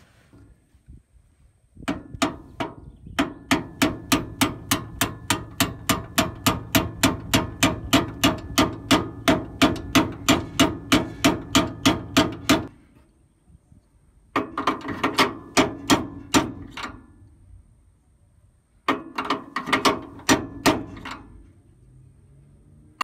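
Hammer blows on a steel drift punch, driving the upper center pin bushing up into a VW bus front axle beam from below. The metal strikes ring sharply at about three a second, in one long run and then two shorter runs.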